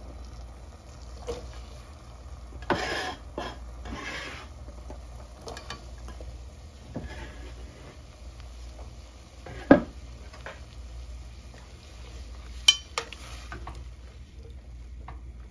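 Pot of nopal strips boiling in water, with a low steady bubbling. A metal spoon stirs and clinks against the stainless steel pot a few times, with sharp clinks about ten seconds in and twice near the end.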